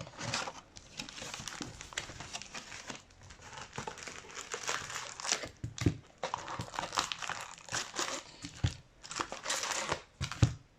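Plastic wrapping crinkling and crackling in irregular handfuls as a sealed trading card box and its packs are torn open.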